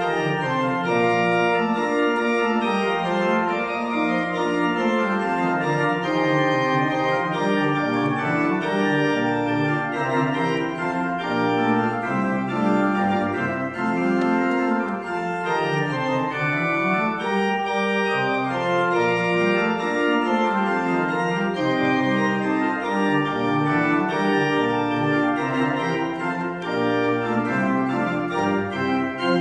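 Organ playing a slow prelude: sustained chords over a bass line that slowly rises and falls.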